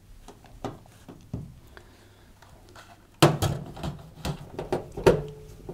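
A few faint clicks, then from about three seconds in a run of knocks and rattles, some with a short metallic ring: the sheet-metal heater assembly of a tumble dryer being handled and set against the dryer's metal back panel.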